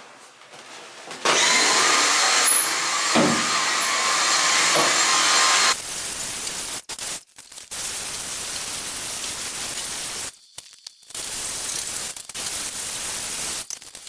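Dyson cordless stick vacuum running, starting about a second in with a loud steady motor whine. After a few seconds it drops to a quieter steady run, broken by a few short gaps.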